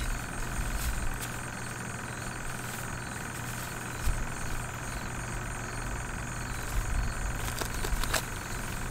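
Wind buffeting the microphone in uneven low rumbles over a steady low hum, with two light clicks about four and eight seconds in.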